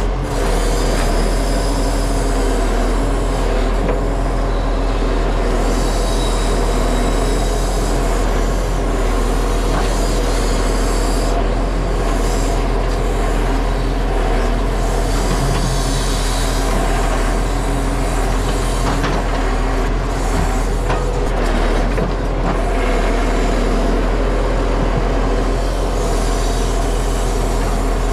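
Timber truck's diesel engine running steadily, with a few faint knocks about two-thirds of the way through.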